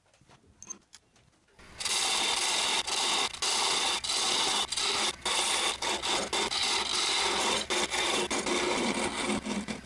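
A hand-held turning tool cutting into a spinning catalpa wood blank on a lathe: a loud, steady scraping hiss of shavings that starts about two seconds in, broken by many brief dips as the tool eases off the wood.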